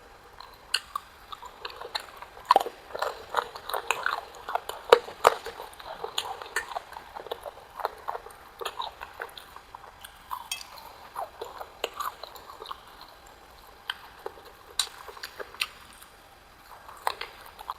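Close-miked eating: wet chewing and biting with many short mouth clicks and smacks, busiest in the first few seconds and again near the end.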